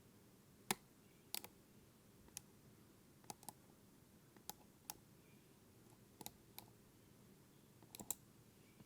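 Faint, irregular metal clicks of a lock pick and tension tool working the wafers inside an Illinois Duo wafer cam lock during picking, about a dozen in all, some in quick pairs.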